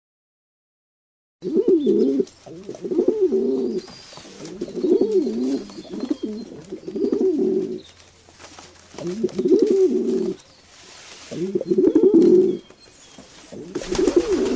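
Pigeons cooing: a run of low, warbling coos in about five bouts with short pauses between them, starting after a second or so of dead silence.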